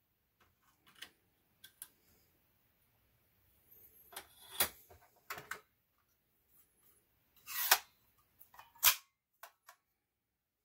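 Clicks and snaps of a Powerfist 18-gauge brad nailer's metal magazine being opened and slid to take out the nails: a string of short, sharp clacks with pauses between them, the loudest about three quarters of the way through.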